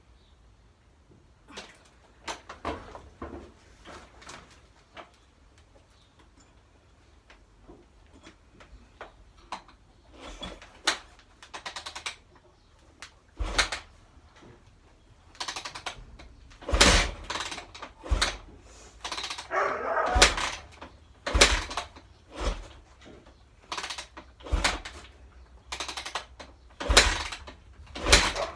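A series of irregular knocks and clanks, sparse and light at first, then louder and coming every second or so in the second half, with a short rasping scrape among them.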